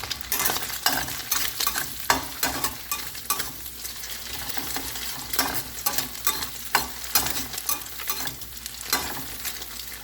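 Chopped vegetables and egg frying in oil in a pot, sizzling steadily while a utensil stirs them with irregular scraping and clinking strokes against the pot.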